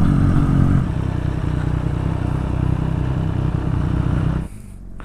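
Honda CBR1000RR Fireblade's inline-four engine running steadily on the move, dropping a little in level about a second in, then cutting off abruptly about four and a half seconds in.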